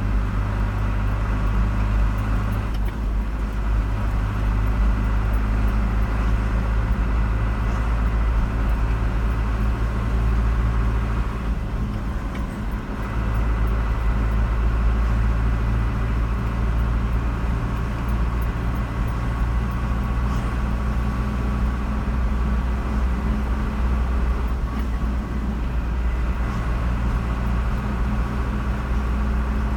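Steady low engine and road noise of a car being driven, with a continuous hum and a brief dip twice.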